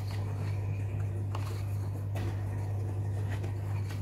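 A steady low hum, with a few brief soft rustles and taps of stiff paper sheets being handled.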